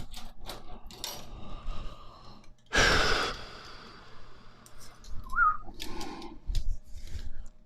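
Light metal clicks and ticks of bicycle spokes being threaded through the hub and rim while lacing a wheel, with one louder scraping sound with a faint ring about three seconds in.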